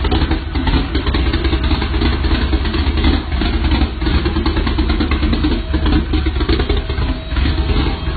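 Loud aftermarket engine exhaust running steadily with a rough, rumbling note and no clear revs.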